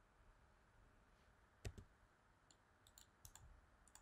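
Near-silent room tone with a few faint, scattered clicks from working a computer's mouse and keys.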